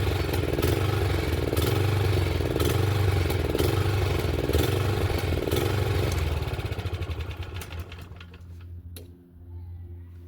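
Etesia Pro 46 lawnmower engine running with a regular pulse about once a second, then faltering and dying away about six to eight seconds in, which the owner puts down to the tank running out of fuel. A quieter low hum remains after it stops, with one click near the end.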